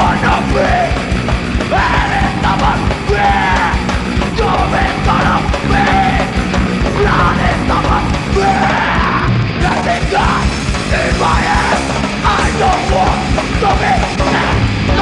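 Live punk band playing loud and fast, with shouted vocals over the full band throughout.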